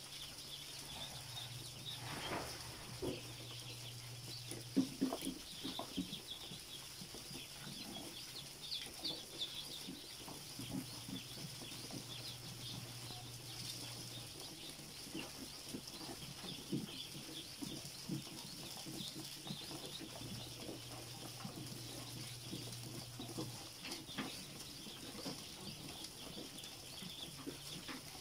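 A crowded brood of ducklings peeping all at once, a dense, unbroken chorus of high cheeps, with scattered soft knocks, the loudest about five seconds in.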